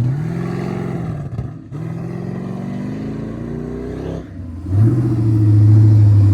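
Off-road truck engine revving: the revs climb twice, dropping off briefly each time, then hold high and steady for the last part. The crew says the engine is temperamental and running badly.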